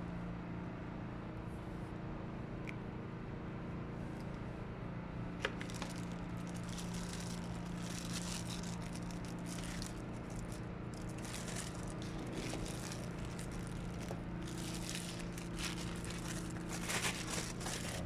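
A steady low electrical hum runs throughout, with a sharp click about five seconds in. Intermittent crackling and scraping on metal starts about six seconds in and grows busier and louder near the end.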